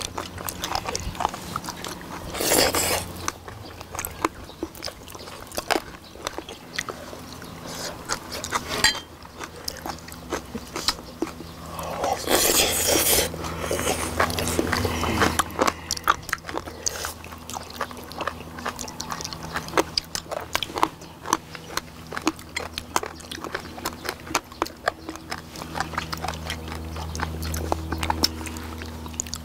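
Close-up eating sounds of several people eating braised sea squirts: wet chewing and biting with many small clicks and smacks. There are two longer slurps, about two seconds in and again around twelve seconds in.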